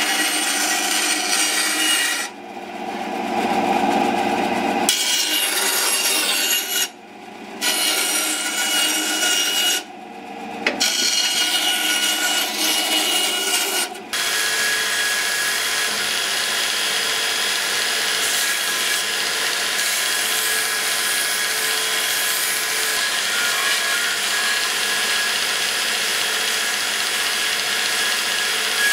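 Bandsaw cutting through a wooden board, the blade's rasp dropping away three times in short pauses. About halfway through it gives way to a belt grinder running steadily as a thin piece of wood is sanded against the abrasive belt.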